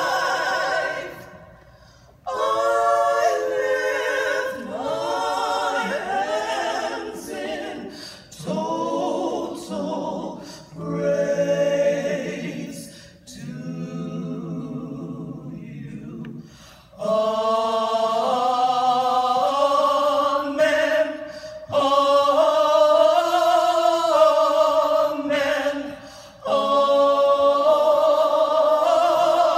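Four-woman vocal group singing a cappella, in phrases with short pauses between them.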